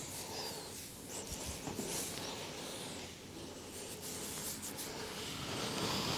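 Massage hands rubbing and rustling over the head and hair, a continuous scratchy rubbing.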